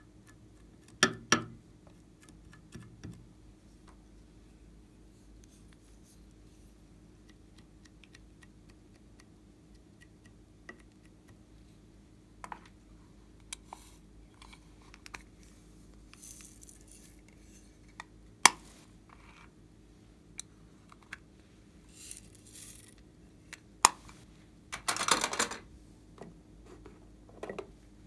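Small plastic containers of slime add-ins being handled: lids and cases clicking open and shut, light taps on the glass trays, and a brief rattle of sprinkles being shaken out near the end. The sounds are scattered, with quiet stretches between.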